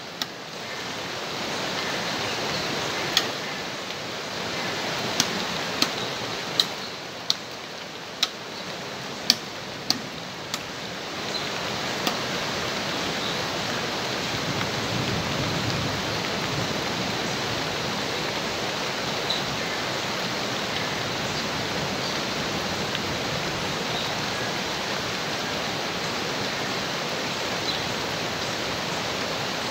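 Steady rush of flowing water throughout. In the first twelve seconds or so it is broken by about a dozen sharp, irregular knocks of wood being struck as firewood is worked for a campfire.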